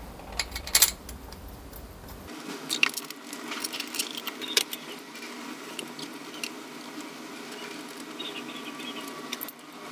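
Scattered light metallic clicks and clinks of bolts and hand tools being handled and set against a motorcycle engine's camshaft cover as it is fitted and bolted down.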